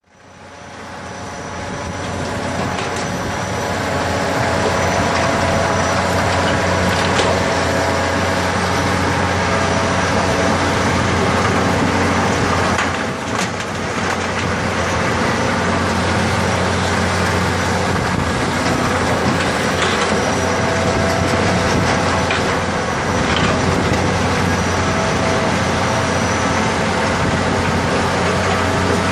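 A really big earth-digging machine running steadily and loudly, its engine drone mixed with a dense mechanical rumble and a few clanks. It fades up from nothing over the first few seconds.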